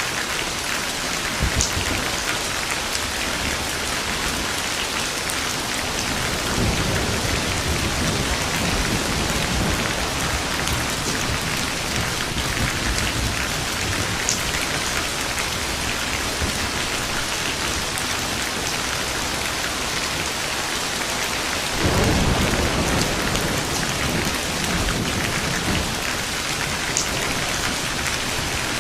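Steady heavy rain falling on surfaces, with a few sharp drop ticks, and thunder rumbling twice: a low rumble swelling about six seconds in and a louder, sudden clap-and-rumble about twenty-two seconds in.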